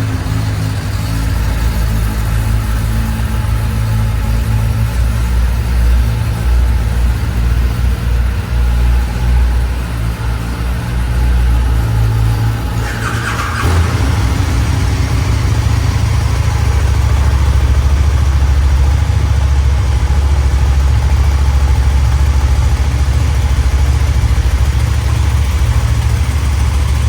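Kawasaki ZX-10R and KTM 1290 Super Duke R motorcycle engines idling on their stock exhausts with a steady low rumble. About halfway through there is a short higher whirr, and after it the idle is louder and more even.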